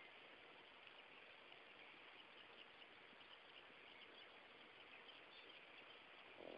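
Near silence: faint steady outdoor background noise, with a few faint high chirps here and there.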